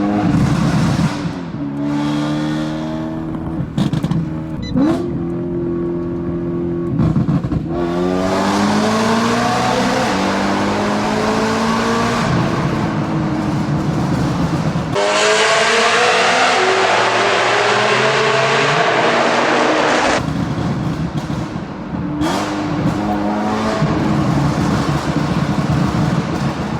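A 2013 BMW M3's 4.0-litre V8, nearly straight-piped with an Akrapovič rear muffler and a Gintani tune, at full throttle through a tunnel. It gives several sharp throttle blips in the first eight seconds, then two long rising pulls split by a sudden upshift about fifteen seconds in. It lifts off near twenty seconds, with cracks on the overrun.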